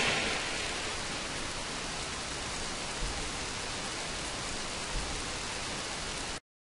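Steady, even hiss like static or rain noise, with two faint low thumps about three and five seconds in; it cuts off abruptly near the end.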